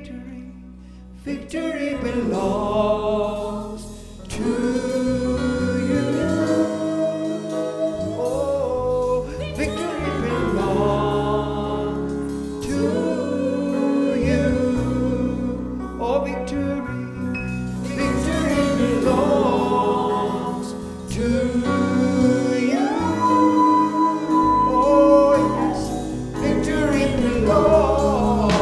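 Live gospel worship song: a man singing into a microphone over electronic keyboard accompaniment. The band swells to full volume about a second and a half in.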